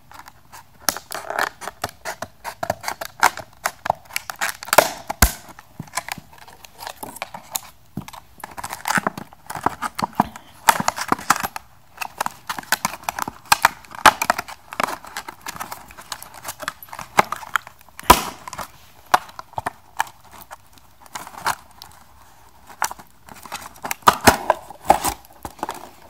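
Stiff clear plastic clamshell packaging being cut with scissors and pried apart by hand: irregular crackling and crinkling, with a few sharp snaps of the plastic.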